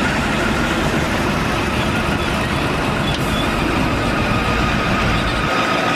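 Heavy diesel earthmoving machinery running steadily, with a faint high whine that grows clearer in the second half.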